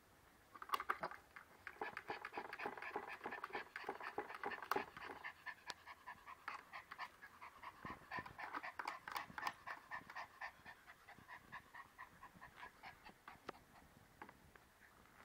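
A small terrier panting rapidly in quick, short puffs, strongest in the first few seconds and tailing off near the end.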